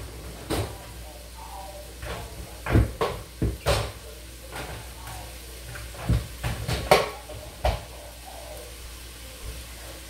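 Kitchen clatter: a series of sharp knocks and bumps, about eight in all, the loudest near the middle and about seven seconds in, over a low steady hum.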